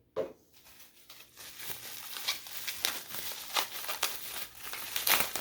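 Packaging being crinkled and pulled open by hand: a dense run of crackles and rustles that builds up after about a second. Just at the start there is a brief sound that falls in pitch.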